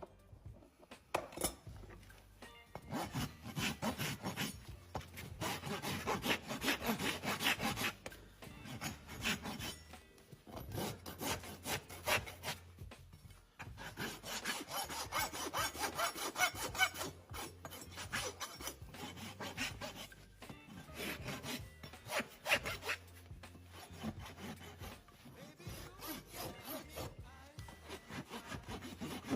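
A farrier's rasp filing a horse's hoof in repeated rough strokes, in several runs with short pauses between them.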